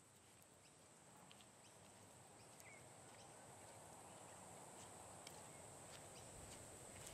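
Near silence: a faint background hiss that slowly swells, with a steady faint high-pitched whine and a few scattered soft ticks.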